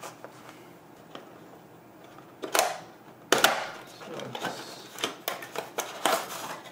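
Paperboard retail box being opened by hand: a few faint clicks, then loud rasps of the cardboard flap being pulled open about two and a half seconds in, followed by a run of scraping and tapping as the inner box slides out.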